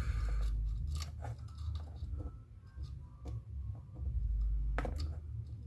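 Hands working speaker wire onto subwoofer terminals: scattered small clicks and rustles, with low rumbling handling noise that swells twice.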